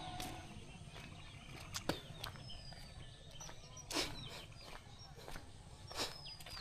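Small birds chirping, with short calls and thin falling whistles, over quiet outdoor background sound. Scattered sharp clicks run through it, the loudest about four and six seconds in.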